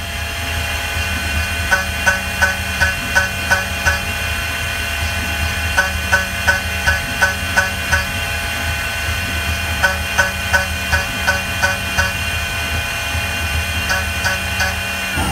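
CNC jewelry milling machine engraving a metal ring: a steady high whine from the spindle, with runs of about half a dozen sharp ticks, about three a second, recurring every few seconds as the cutter works the ring.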